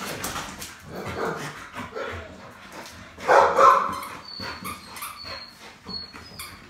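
Dog playing with a plush toy: scuffling and mouthing noises, one loud bark-like vocalisation about three seconds in, then a few short high squeaks.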